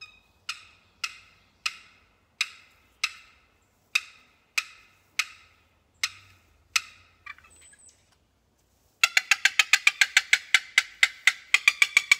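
4-Play wooden turkey box call worked in a slow, even series of about ten single short calls, each a little over half a second apart. After a pause, a fast rattling run of notes, about six a second, starts near the end.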